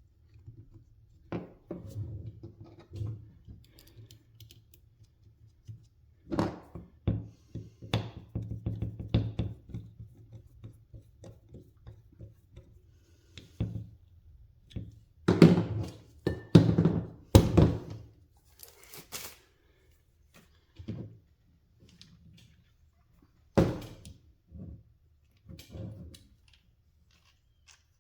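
Small metal parts of a ratcheting torque wrench head being handled and fitted together: scattered clicks, taps and knocks, with a burst of louder knocks about halfway through, while the peg is worked into line with the spring.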